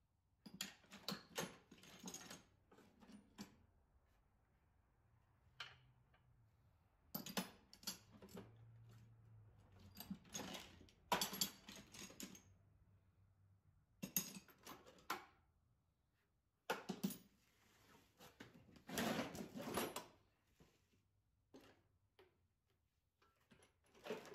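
Metal sockets and hand tools clattering and rattling in a toolbox as it is rummaged through, in irregular bursts of a second or two with short pauses between.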